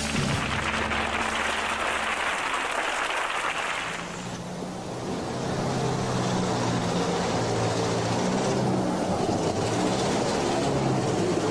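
Audience applause for the first few seconds, then a car engine running with a steady low hum.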